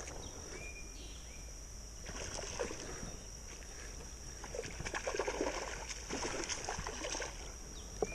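Hooked smallmouth bass splashing and thrashing at the creek surface in irregular bursts as it is reeled in, loudest a little past the middle. A steady high insect buzz sounds throughout.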